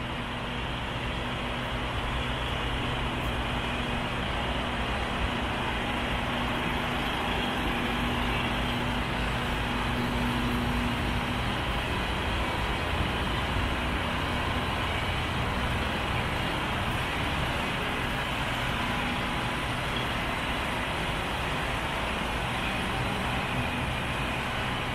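DAF CF85 tractor unit's Paccar MX diesel engine idling with a steady hum; one tone in the hum drops out about halfway through.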